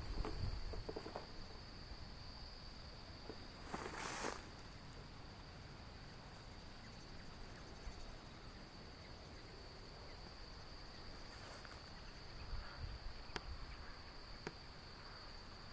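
An insect's steady, unbroken high-pitched trill. A brief rustling burst about four seconds in, and a couple of faint clicks near the end.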